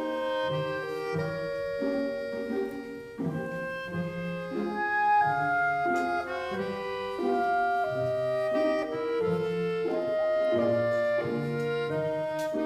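Instrumental background music: a melody of held notes over a changing bass line.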